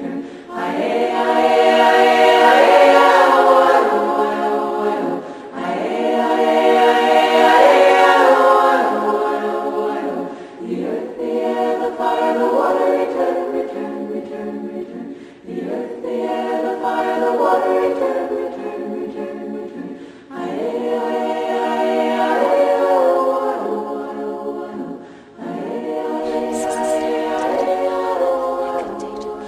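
Choir singing sustained chords a cappella, in long phrases of about five seconds each with a brief break between them.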